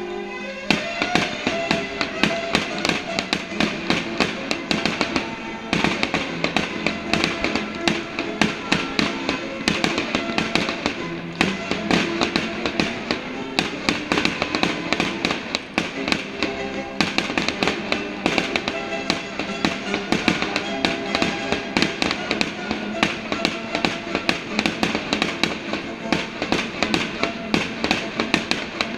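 Fireworks display going off in rapid, continuous bangs and crackles over music.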